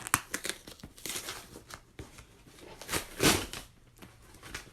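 Packaging being torn and crinkled open by hand: a run of crackles and rustles, with a louder, longer rip about three seconds in.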